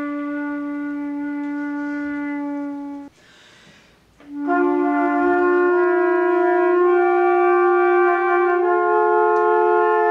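Flute and trumpet playing long held notes. A single low flute note is held first. After a brief pause about three seconds in, the trumpet joins and the two sustain notes together, moving to new pitches a few times.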